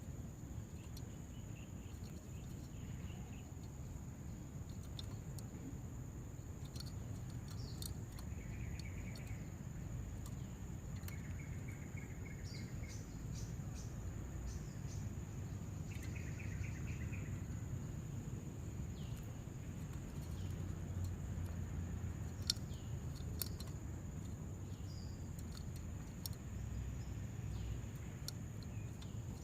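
Outdoor ambience: a steady high insect drone with low rumbling background noise, and a few short, faint chirping trills from small birds or insects about a third and half of the way in.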